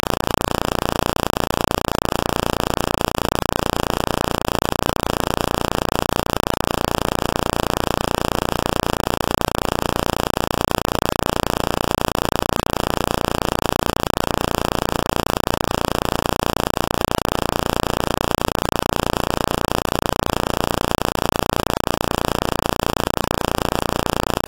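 Steady, loud hiss of noise with nothing else in it, like static.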